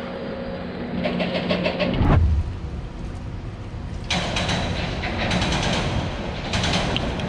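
Engine noise, steady and humming, broken by a heavy thump about two seconds in; from about four seconds in a rougher, hissing clatter.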